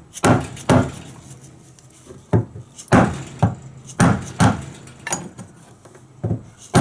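Dead blow hammer tapping on old brass door-lever hardware: about nine sharp knocks at irregular intervals, several in quick pairs. The hardware's screw heads have been drilled off, and the taps are loosening the long-seated hardware from the door.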